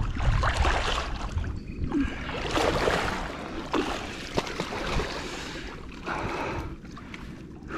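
A large wels catfish thrashing at the surface on a hooked line, in irregular bursts of splashing water.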